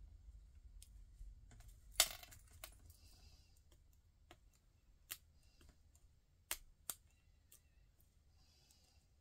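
Scattered light clicks and taps from a beaded craft pick and fingertips pressing on a paper shaker card; the sharpest click comes about two seconds in, with two more close together near seven seconds.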